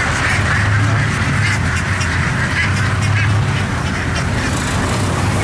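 A large flock of caged ducks quacking, many calls overlapping, over the steady low hum of a boat engine.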